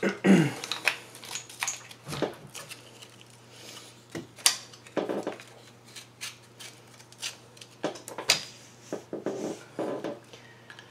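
Irregular clicks, clacks and light knocks of Mossberg Blaze .22 rifle parts being handled and fitted back together during reassembly, with a short downward-sliding scrape at the start. A faint steady hum runs underneath.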